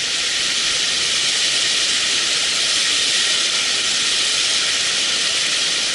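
Mountain stream rushing steadily: an even hiss of fast-flowing water.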